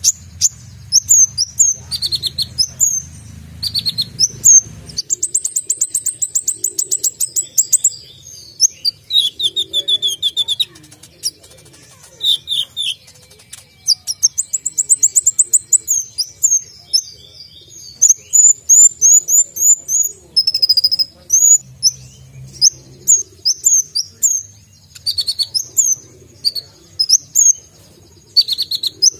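Caged male kolibri ninja sunbird singing a long, busy song of sharp, high-pitched chirps, quick down-slurred notes and fast trills. The song is packed with borrowed phrases (isian).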